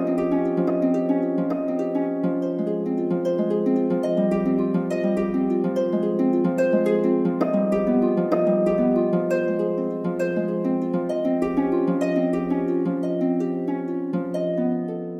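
Instrumental music: a steady stream of plucked harp notes over a held low note.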